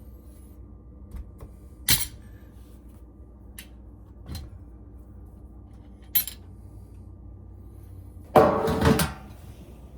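A few sharp, scattered clinks and knocks, then a short clattering rattle near the end, as a shallow pan is handled and set down under the washer's drain pump.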